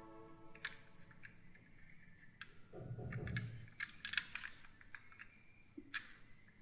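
Scattered light clicks and taps of small hard objects being handled, with a soft low thump about three seconds in.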